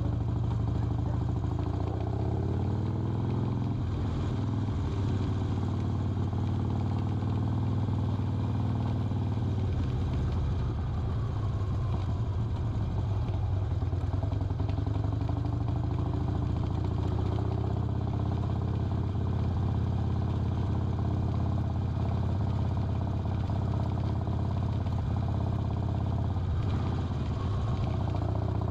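Harley-Davidson Sportster 1200's air-cooled V-twin engine running under way. Its note climbs over the first few seconds to a gear change, then dips and climbs again near the middle.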